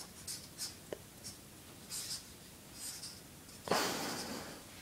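Felt-tip marker drawing on paper in short, faint scratching strokes. A longer, louder rush of noise comes a little before the end.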